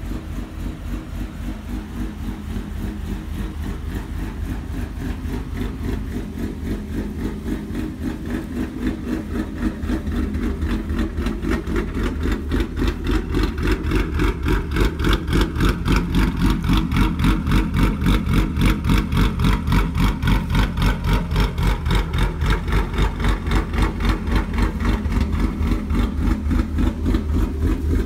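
Ford Mustang 3.7 L V6 idling with an uneven, lopey beat of about three pulses a second from a 'Ghost Cam' tune, through long-tube headers and Borla ATAK axle-back mufflers. It gets louder about halfway through, close to the exhaust tips.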